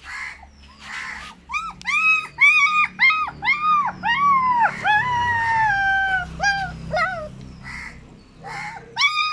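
German shepherd puppy crying: a run of short whimpers, each rising and falling in pitch, with one longer whine in the middle that slides down. A last short whimper comes near the end.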